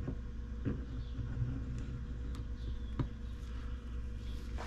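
Steady low hum with a few light clicks of greased metal parts as a gear is worked down onto its shaft inside an opened Bafang M620 e-bike mid-drive motor, three clicks in all, the last near the end.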